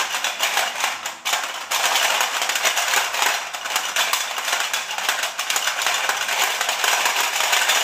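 Hungry Hungry Hippos board game played fast: the plastic hippos' levers hammered and their jaws snapping in a continuous rapid clatter, briefly dropping off a little over a second in.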